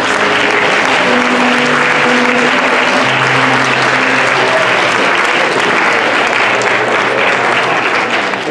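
Audience clapping after a presentation, dying down near the end, with a few held music notes underneath.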